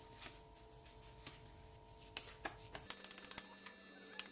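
Faint soft clicks and pats as bare hands press and shape a sticky sabudana and potato mixture into a patty, with a quick run of clicks about three seconds in.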